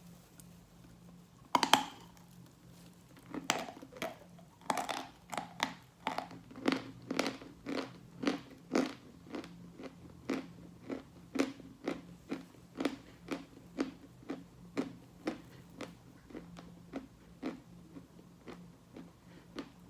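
A person biting into a piece of wet, sawn Khrapovsky chalk with one sharp crack, then chewing it close to the mic in crisp crunches about twice a second, which grow fainter toward the end.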